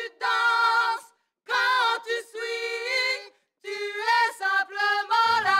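Women's voices singing a cappella with no accompaniment: three short sung phrases with held notes, broken by two brief pauses.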